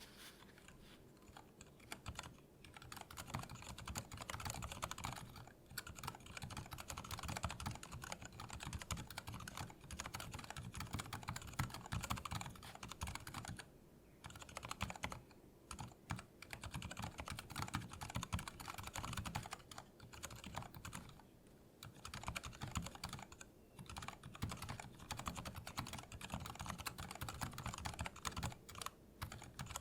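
Continuous typing on a Lily58 Pro split mechanical keyboard with Cherry MX Silent Red switches in a 3D-printed case: a fast run of soft, muted keystrokes, broken by a few brief pauses.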